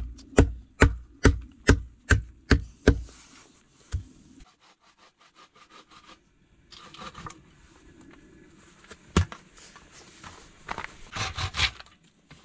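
Hatchet blows on a short wooden post, knocked about twice a second for some three seconds, with one more blow a second later. Later a wooden bow saw cuts a log in rasping strokes that grow louder near the end.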